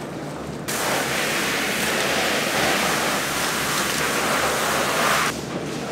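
A loud, even rush of spraying water switches on under a second in and cuts off suddenly about five seconds in, over a steady low machine hum.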